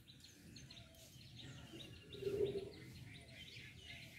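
Small birds chirping over and over in the background, with a brief louder low sound about two seconds in.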